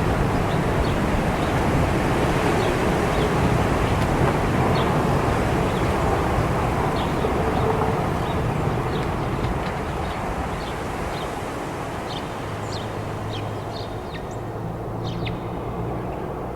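Blizzard wind rushing steadily over a low rumble, with many short, high bird calls from American robins, coming more often toward the end as the wind eases a little.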